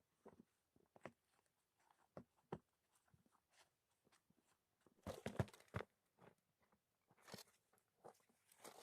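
Faint, scattered crunching and clicking, with a denser run of crunches about five seconds in and shorter ones later.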